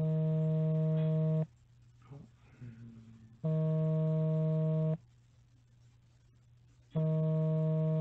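Mobile phone vibrating with an incoming call: three identical buzzes, each about a second and a half long, starting and stopping abruptly about two seconds apart.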